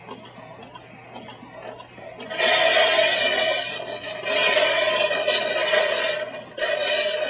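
RES-Q-VAC hand-squeezed suction pump drawing through its tubing in three long hissing pulls, starting about two seconds in, with a steady tone running through the hiss.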